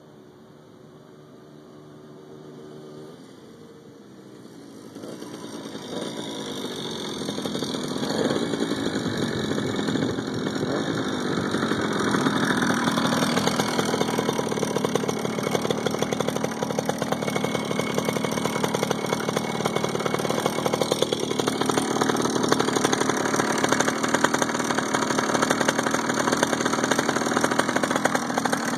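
Grubee Skyhawk GT5 66cc two-stroke motorized-bicycle engine with an expansion-chamber exhaust, faint at first and growing much louder over a few seconds as it comes close. It then runs loud and steady, with its pitch dropping at times.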